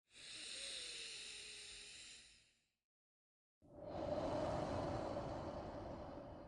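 A person taking two slow, deep breaths during a breathing meditation: a soft, airy breath of about two and a half seconds, then after a second's pause a longer, louder, fuller breath.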